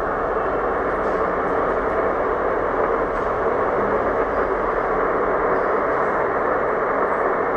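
Steady hiss of HF band noise from an amateur radio receiver with no station transmitting, heard through a Vertex external speaker. The sound is narrow and muffled, cut off above the voice range by the receiver's filter.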